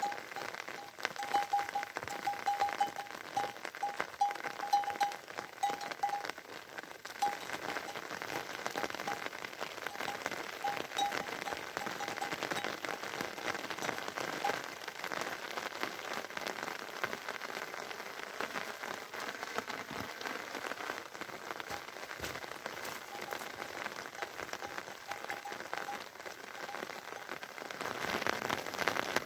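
Steady rain falling, a dense patter of many small drops. A faint repeated high chirp sounds through about the first half, and the rain grows a little louder near the end.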